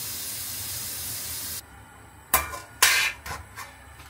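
A steady hiss that stops abruptly about one and a half seconds in, then a run of sharp clanks and knocks as a plate and a metal steamer pot are handled, two loud ones close together and a few lighter ones after.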